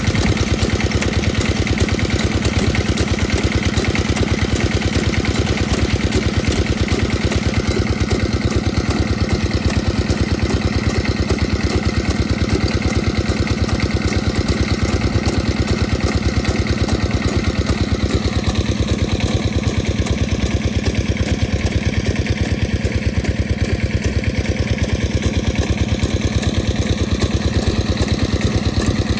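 Small engine driving a core drilling rig, running steadily with a fast, even beat throughout.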